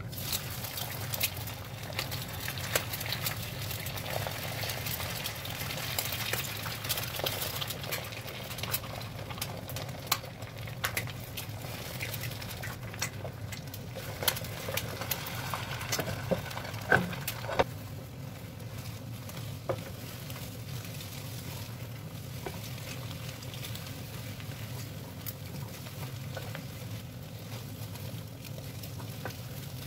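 Eggs sizzling and crackling in hot oil in a non-stick frying pan, with a wooden spatula scraping and knocking against the pan as they are broken up and stirred. A few sharper knocks come a little past the middle, over a low steady hum.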